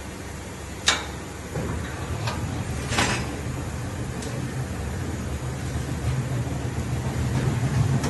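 Electric motor of a meat-processing machine running with a low steady hum that sets in soon after a sharp click and slowly grows louder, with another sharp click partway through.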